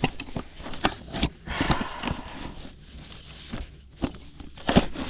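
Knocks and scraping from sheets of tin roofing being pried loose and pulled down, with a metallic scrape and faint ring about one and a half seconds in and a loud knock near the end.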